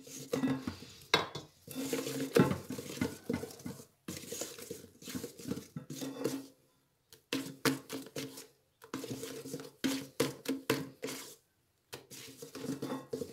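Wire whisk beating cake batter by hand in a stainless steel bowl, clicking and scraping rapidly against the metal sides. The beating comes in spells broken by several brief pauses.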